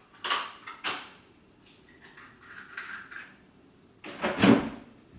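Household handling sounds, likely a door or cupboard: two sharp knocks in the first second, a faint rustle, then a louder, half-second clatter near the end.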